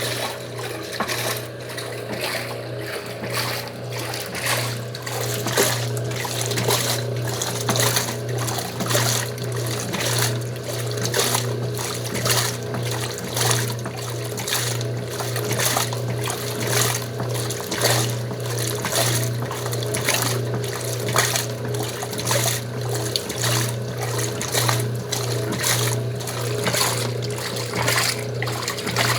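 Old Wanke washing machine agitating its wash: water sloshing in an even, repeating rhythm over the steady low hum of its motor.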